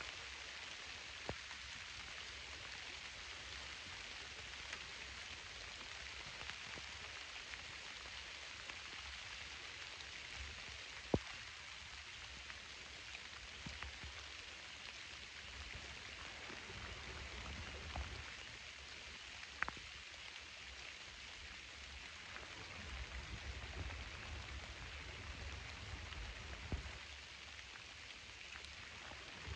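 Steady rain falling on the pond, an even hiss throughout, with a few scattered sharp ticks.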